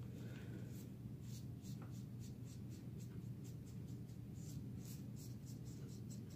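Paintbrush strokes on a canvas: a run of short, scratchy strokes, about three or four a second, starting about a second in, over a steady low room hum.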